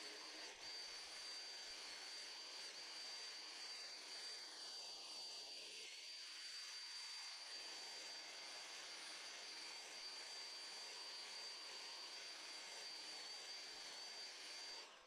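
Atlas 40-volt cordless hedge trimmer running steadily as it cuts through a shrub, a constant high whine over a hiss.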